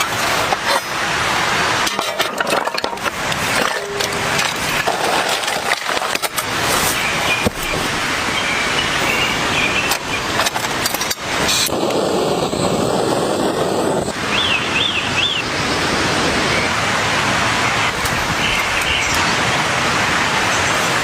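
Heavy rain pouring down: a steady loud hiss with scattered sharper hits of drops.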